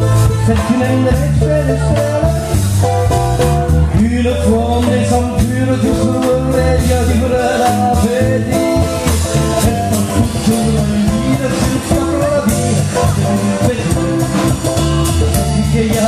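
Live folk band playing a five-beat waltz: a small plucked stringed instrument, drum kit with cymbals, and singing.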